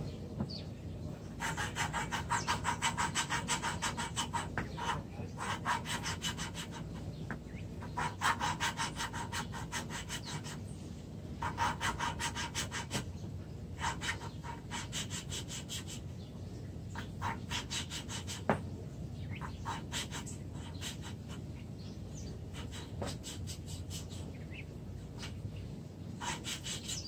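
A valve being hand-lapped into its seat in a Cavalier Z24 2.4 L cylinder head: a suction-cup lapping stick is spun back and forth between the palms, grinding the valve face against the seat with grinding paste. This makes a rapid, gritty rasping in runs of a few seconds, with short pauses between them.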